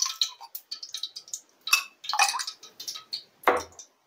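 Coconut oil heating in an aluminium kadai, crackling and popping irregularly, with a single knock about three and a half seconds in.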